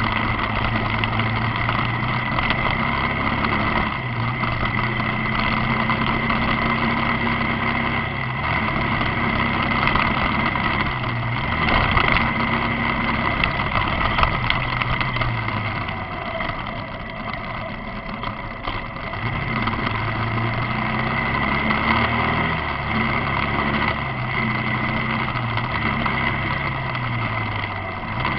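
Motorcycle engine running under way, its pitch falling and climbing back several times as the revs change, over a steady rushing noise.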